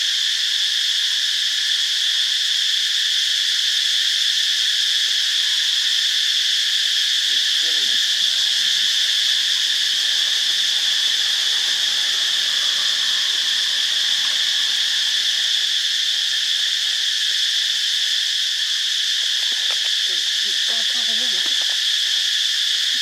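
A loud, steady chorus of insects, a continuous high-pitched shrill drone that does not change. Faint voices come through about a third of the way in and again near the end.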